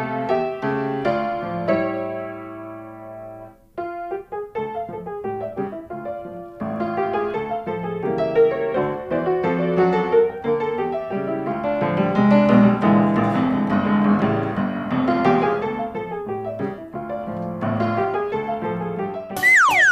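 Background piano music, a continuous run of notes. Near the end a short sound effect falls quickly in pitch.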